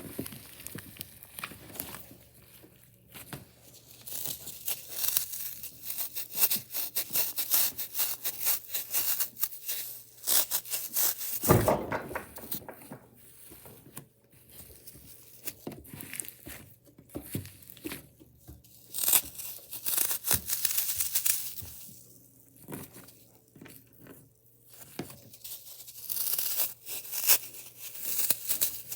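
Slime being squeezed and worked by hand, making many small pops and clicks in irregular runs with short quiet gaps. There is one louder, deeper squelch about halfway through.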